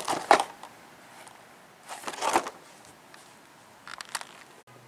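Plastic packaging crinkling and rustling in short bursts, three times, as bagged and blister-packed brake parts are handled.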